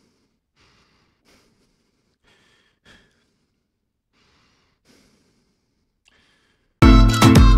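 Faint, short human breaths or sighs, about eight of them at uneven intervals of half a second to a second. Near the end, loud music with a string melody starts suddenly and drowns them out.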